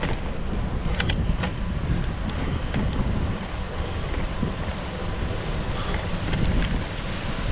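Wind buffeting the microphone of a bike-mounted GoPro Hero7 while riding, a steady low rumbling rush, with two short clicks about a second in.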